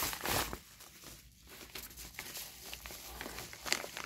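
Padded paper mailer being handled and opened: a rustle at the start, then soft scattered crinkles and a few sharp crackles near the end.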